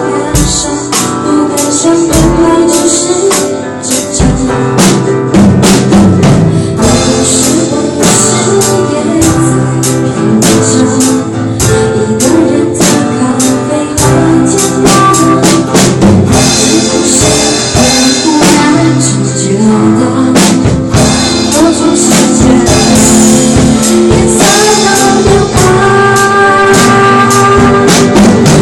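Loud music with a drum kit beat and singing.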